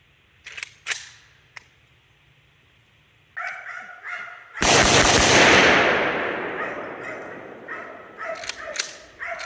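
Two gunshots about half a second apart near the start, then a dog barking repeatedly. About five seconds in, a loud rushing blast of noise starts suddenly and fades away over a few seconds while the barking goes on.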